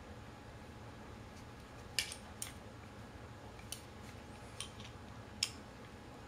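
Scattered small metallic clicks and clinks, about half a dozen over several seconds with the sharpest about two seconds in, as a wheelchair caster wheel and its bolt and bushings are handled and fitted back into the caster fork.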